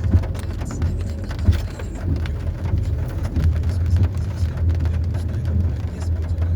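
Car driving along a road: a steady low rumble with many small knocks and rattles throughout.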